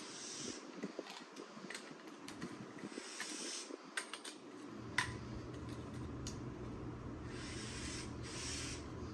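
Faint rubbing and scraping with a few light, sharp clicks from small parts being handled, over a low steady hum that sets in about halfway through.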